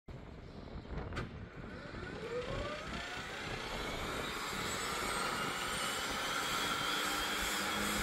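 Turboprop engine of a Piper PA-46 Malibu Jetprop DLX starting: a click about a second in, then a whine that rises in pitch as the turbine spools up, settling into a steady high whine as it grows louder.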